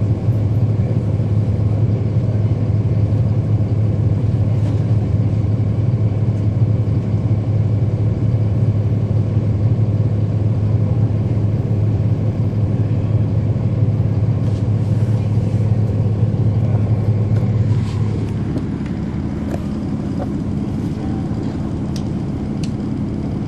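Cummins ISL9 diesel of a 2010 NABI 40-SFW transit bus heard from on board, running steadily under way with a strong low drone. About three-quarters of the way through, the engine note drops and gets a little quieter, with light rattles and clicks from the bus.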